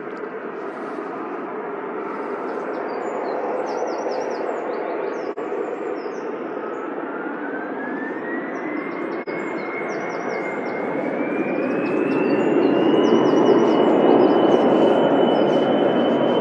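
Jet2 Boeing 737 jet engines spooling up to takeoff power, the roar growing louder with a whine that rises in pitch in two steps. Birds chirp over it.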